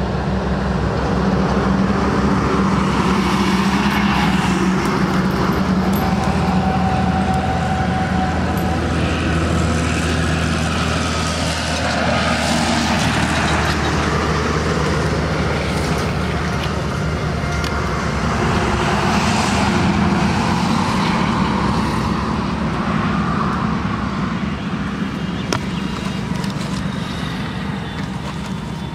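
Road traffic: the engines and tyres of passing motor vehicles, a steady low hum with the noise swelling and fading about three times as vehicles go by.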